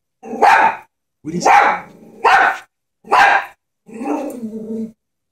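Chihuahua barking four times in short, sharp yaps, then giving a longer, lower growl about four seconds in. It is a small dog's scared barking at a stuffed toy horse.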